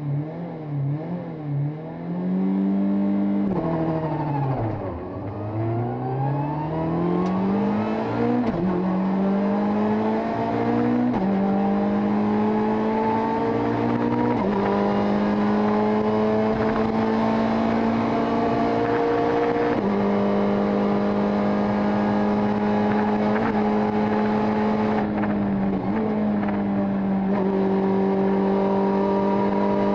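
Rally car engine heard from inside the cabin: revs blipped at the start, then the car pulls away and accelerates hard through the gears, its pitch climbing and dropping sharply at each upshift. It then runs at high, steady revs, with a brief dip near the end.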